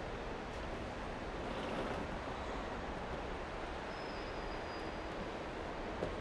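Steady rumble of parking-garage ambience with distant traffic, and a faint knock near the end.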